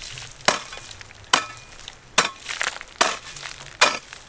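Hoe blade striking dry soil five times at an even pace, a little under a second apart, some blows with a faint metallic ring, digging holes to plant corn.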